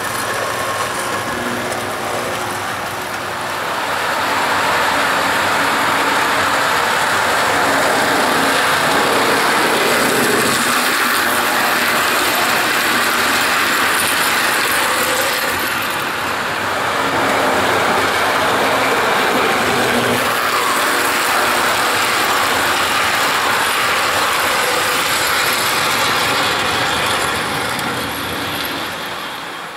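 Toy rapid-transit train cars driven by a Marx double-reduction motor, running along three-rail tinplate track with a steady mechanical whir and wheel rattle. It grows louder about four seconds in as the train comes close, dips briefly midway, then swells again.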